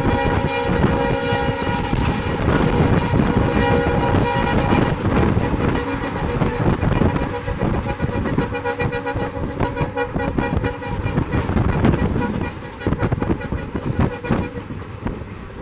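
WDP4 diesel locomotive's air horn blowing a long chord, strongest in the first few seconds, then weaker until it dies away near the end. Under it runs the steady rumble and clatter of the train at high speed.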